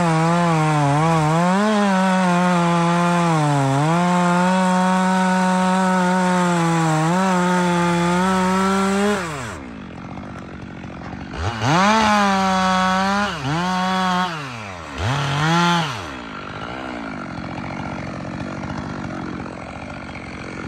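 Stihl MS 462 C two-stroke chainsaw held at full throttle while cutting, its pitch sagging briefly several times as the chain bites into the wood, then dropping off about nine seconds in. Three short bursts of throttle follow before it falls back to a low steady running sound.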